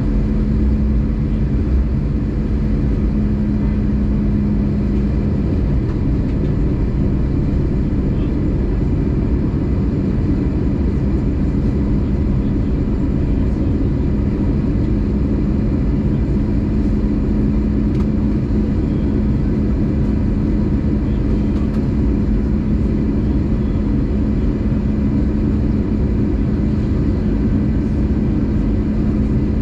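Airbus A320 cabin noise in flight: a steady low rumble of engines and airflow with a constant hum.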